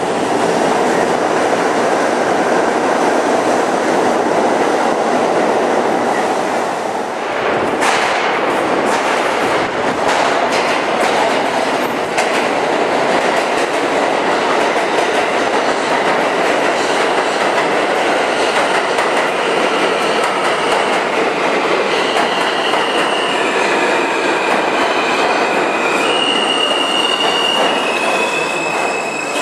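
New York City subway train noise. First comes the steady rumble of a moving car heard from inside. Then an F train pulls into a station, its wheels clicking over the rail joints, and over the last several seconds high steady squeals from the wheels and brakes step in pitch as it slows to a stop.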